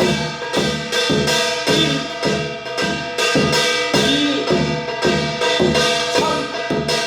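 Korean shamanic (musok) percussion played at a slow, even tempo: about two to three strikes a second, with ringing tones held between the strokes.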